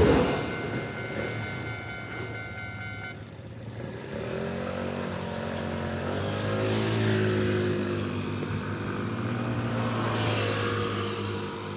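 The tail of a Keisei Evening Liner train clattering past a level crossing, with the crossing's warning bells ringing and stopping about three seconds in. After that, the engines of waiting cars rise in pitch as they pull away over the crossing.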